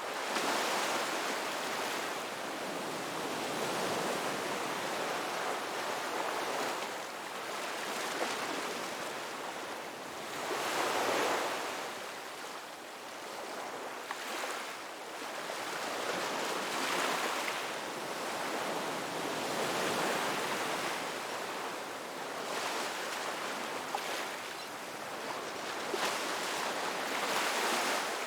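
Ocean waves breaking and washing on a beach, a continuous surf that swells and eases every few seconds.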